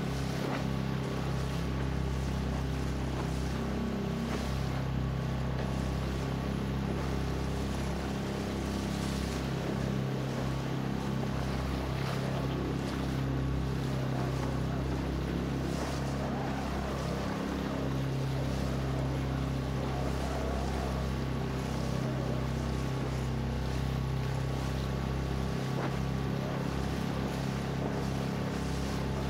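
Outboard motor of a small fishing skiff running at a steady speed, a constant even drone, with the hush of water along the hull.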